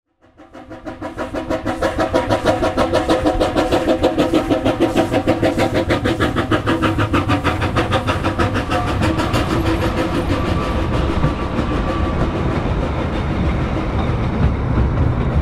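Narrow-gauge steam locomotive hauling a passenger train past, its exhaust beating quickly and evenly as the sound fades in. After about ten seconds the beat weakens into the steadier rumble and clatter of the coaches rolling by.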